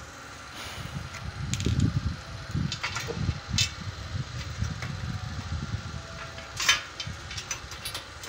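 Scattered light metallic clicks and taps of nuts and bolts being fitted by hand to a steel angle-iron battery rack, over a low uneven rumble.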